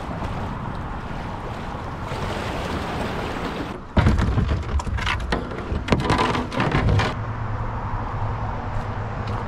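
Moving river water and wind noise on the kayaker's camera mic, then about four seconds in a sudden run of loud knocks and scrapes for about three seconds as the plastic whitewater kayak's bow runs into the riverbank at the take-out. After that a steadier, lower noise with a low hum.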